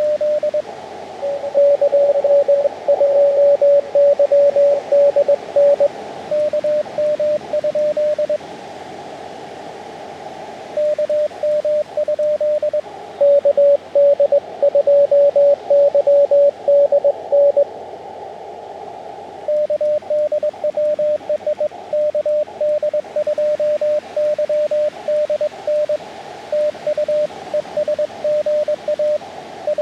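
Morse code (CW) from a ham radio transceiver: a single mid-pitched tone keyed on and off in quick dits and dahs over hiss from the receiver's narrow filter, as stations exchange contacts. Some stretches of code are louder than others.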